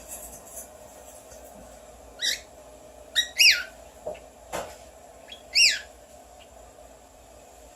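Pet mimic bird whistling, imitating whistles: about four short, clear notes, each falling in pitch, spread over a few seconds.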